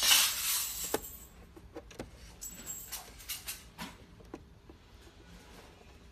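Handling of steel picture-hanging wire and a metal wire hanger as the wire is locked in: a loud scraping rush for about the first second, then scattered small metal clicks and taps.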